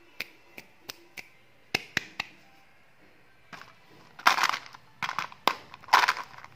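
Hands handling a small plastic Cube Cool Candy container: a few sharp plastic clicks and taps, then from about four seconds in several louder handling noises, each lasting a fraction of a second, as the container is worked open.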